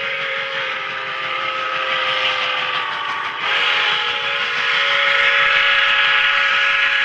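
Steam locomotive's chime whistle blown in one long, held chord, growing louder about three and a half seconds in, over the steady rush of the locomotive working hard.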